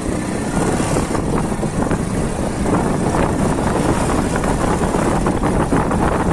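Small motorcycle's engine running while riding, with wind buffeting the microphone; it gets louder about half a second in and then holds steady.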